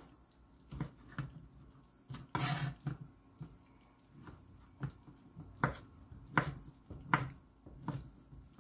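Chef's knife cutting cooked chicken breast into cubes on a plastic cutting board: irregular knocks of the blade striking the board, the sharpest three coming in quick succession a bit past the middle.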